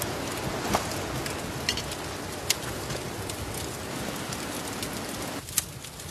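Barbecue sizzling: a steady hiss with a few sharp pops and crackles.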